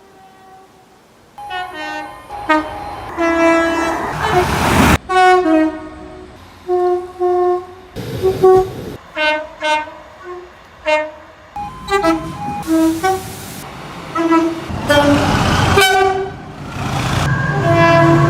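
Train horns sounding a string of short toots and longer blasts, each several pitches at once. They start about a second and a half in and change abruptly every few seconds, with rushing noise under some of the blasts.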